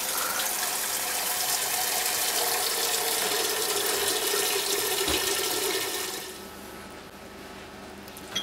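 Water running steadily from a kitchen tap, shut off about six seconds in.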